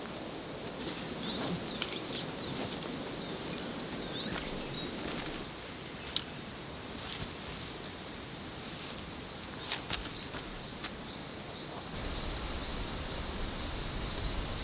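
Outdoor ambience with scattered short bird chirps and a few clicks and light knocks from a tent being pitched, the sharpest click about six seconds in. A low rumble comes in near the end.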